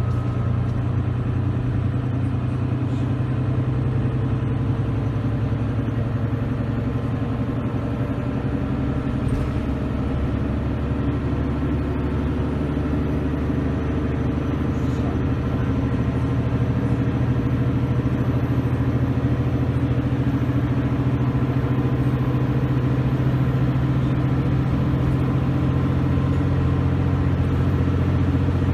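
Service bus diesel engine running steadily, a deep drone that grows slightly louder about halfway through. A faint high turbo whine runs above it, slowly rising in pitch.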